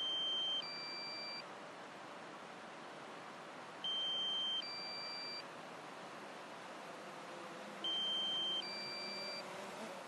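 Drone low-battery warning beeping: a two-part electronic alert, one steady tone switching to a second tone, each part under a second long, repeated three times about four seconds apart. It signals that the drone's battery is nearly flat.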